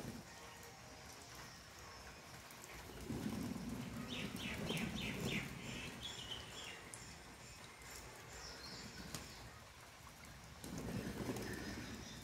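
Pigeons bathing in a shallow puddle, splashing the water with their wings and bodies in two bouts, about three seconds in and again near the end. A small bird chirps a quick series in between.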